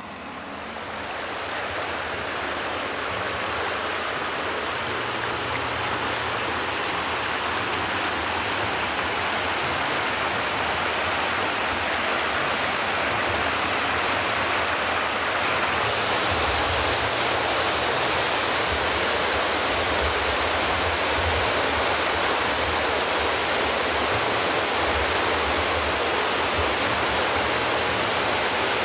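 Hot-spring stream rushing over rocks in a small cascade: a steady hiss of white water that fades in at the start and grows fuller and deeper about halfway through.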